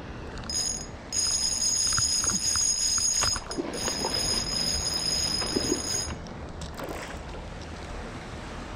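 Spinning reel's drag buzzing in long runs as a hooked fish, a northern pike, pulls line off against the bent rod. It sounds twice for a few seconds each, with a short break between, and stops about two-thirds of the way through.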